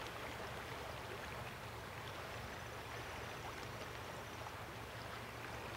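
A wide river flowing fast, a steady, even rush of water.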